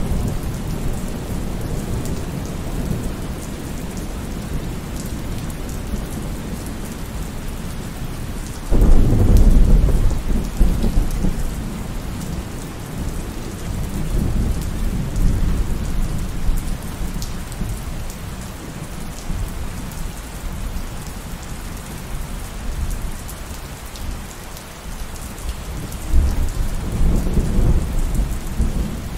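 Steady heavy rain with thunder. A sudden low rumble of thunder breaks in about nine seconds in and fades over several seconds, and a second, weaker rumble comes near the end.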